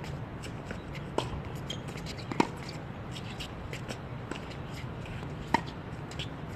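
Tennis ball struck by rackets during a doubles rally: three sharp pops a second or more apart, the loudest about two and a half seconds in, with fainter ticks of bounces and footsteps over a steady low background hum.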